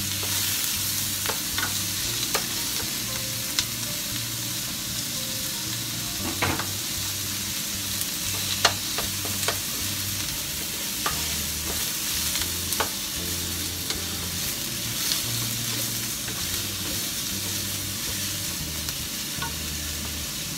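Sliced pork, onion and garlic sizzling in oil in a nonstick wok, stirred with a wooden spatula that knocks and scrapes against the pan at irregular intervals.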